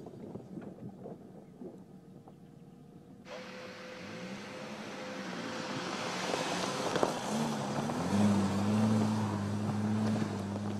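Mercedes-Benz G-Class off-roader's engine pulling at low speed up a rocky slope. It grows louder from about three seconds in, its pitch rising, then settles into a steady low drone near the end. There is a single sharp knock around seven seconds in.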